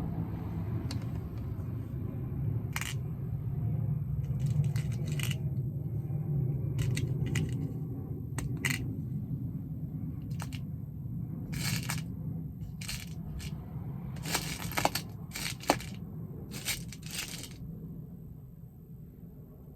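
Small metal lock pins and parts clicking and rattling as they are handled, in a series of short clicks over a steady low rumble that fades near the end.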